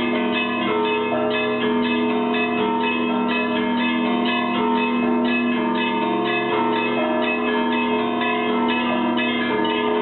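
Russian Orthodox monastery bells ringing continuously. Small bells are struck in quick repeated patterns over the steady, lingering hum of the larger bells.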